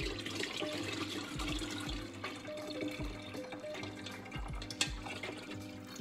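Apple cider poured from a bowl through a fine mesh strainer into a glass pitcher: a steady splashing stream of liquid.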